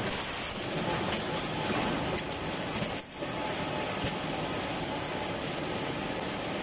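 Facial tissue bundling packing machine running, a steady mechanical clatter and hum with a few clicks.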